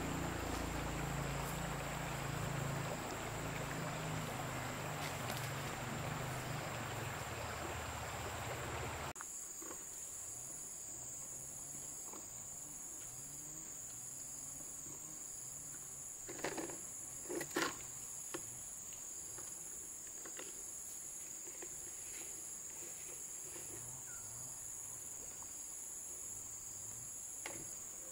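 Insects droning steadily, a high continuous buzz with a faster pulsing chirp above it. Wind rumbles on the microphone for about the first third, stopping abruptly, and a few short knocks come about two-thirds in.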